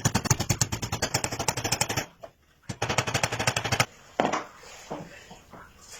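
A power tool clattering with rapid, evenly spaced strikes, well over ten a second, in two bursts separated by a brief pause about two seconds in.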